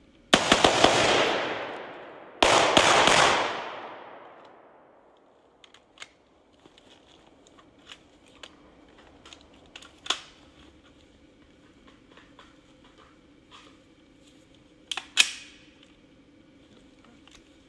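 Rifles firing two quick strings of several shots about two seconds apart, each string trailing a long echo through the forest. Small clicks follow, and one more sharp, loud crack comes about fifteen seconds in.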